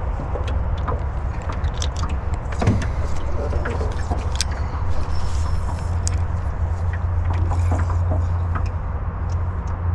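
A steady low rumble with small scattered clicks and rattles as a spinning rod and reel are handled.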